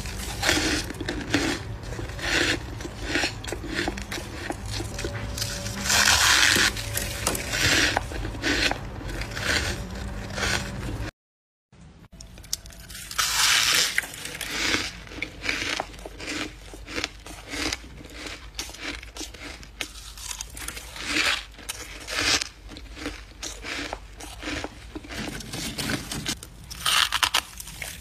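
Close-up crunching of freezer frost chunks being bitten and chewed, a fast run of crisp crunches one after another. The sound cuts out completely for a moment near the middle.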